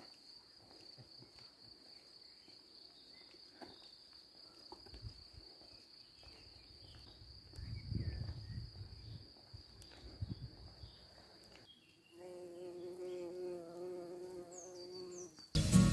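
A cricket singing one steady, high, unbroken trill that stops about three-quarters of the way through. After it a faint low steady tone with overtones comes in, and guitar music starts loudly right at the end.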